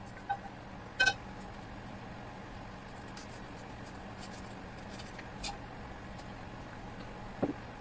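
Kitchen utensils clinking and scraping over a steady low hum. A sharp, briefly ringing clink about a second in comes as stew is tipped from a frying pan into a ceramic bowl. Light ticks follow as chopsticks work egg crisps off a wire-mesh strainer, and a short falling squeak comes near the end.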